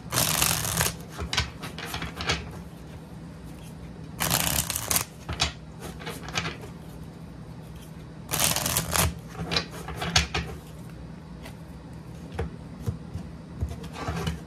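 Deck of oracle cards being shuffled by hand: three longer bursts of riffling, at the start, about four seconds in and about eight and a half seconds in, with short card snaps and taps in between.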